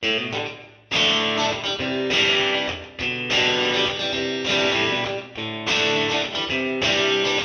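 Background music of strummed guitar chords, changing every second or so.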